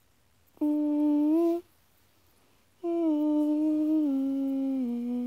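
A girl humming a tune with no accompaniment: a short held note that rises slightly at its end, a pause, then a long note that steps down in pitch several times.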